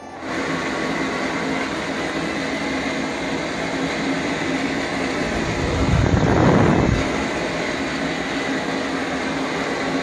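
Minag pet-grooming stand dryer switched on at its first setting, heater off: the blower motor starts and runs with a steady rush of air, a constant hum and a high whine. About six seconds in the sound briefly swells louder and deeper for about a second.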